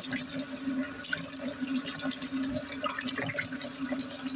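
Water running from a kitchen tap while blueberries are rinsed by hand, a steady splashing with small scattered clicks and patters. A steady low hum runs beneath it.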